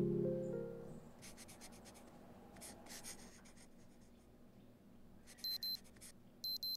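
Scratching strokes of a pen or pencil writing on paper, in two short spells. Near the end, two short, high electronic beeps about a second apart are the loudest sounds.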